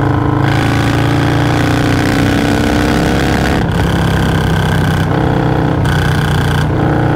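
Stage 2 Harley-Davidson Milwaukee-Eight 117 V-twin on a Low Rider S riding under power. The engine pitch rises steadily for about three seconds, then shifts up and down a few times in the second half.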